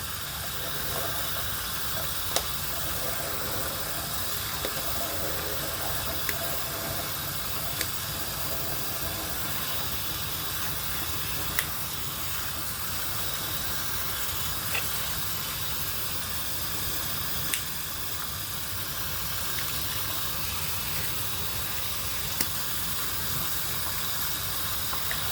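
Tap water running steadily into a sink, with a few faint clicks of the knife being handled.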